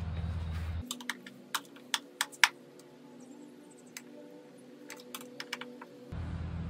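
Scattered light clicks and taps, about a dozen, the sharpest a little over two seconds in, as a hard plastic charger-handle holster is handled and pressed against its wall mount.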